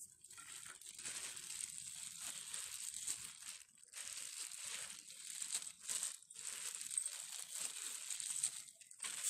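A hand in a plastic glove mixing rice noodles with fried toppings in a steel plate. The plastic crinkles and the noodles rustle in continuous strokes, with a few short pauses.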